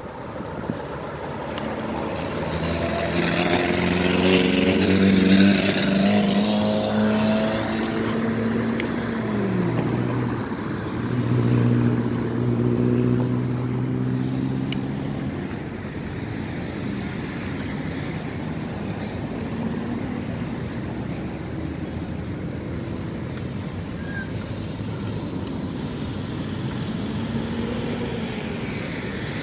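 Motor traffic passing on the road alongside: one vehicle's engine grows loud about four to six seconds in, its pitch falling as it goes by, and a second engine passes soon after, leaving a steady traffic hum.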